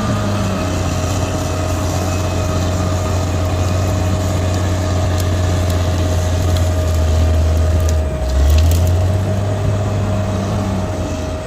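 Bulldozer's diesel engine running steadily, with a constant high whine over it and crunching of dirt under the machine. About eight seconds in there are a few sharp clicks and a short swell in the engine.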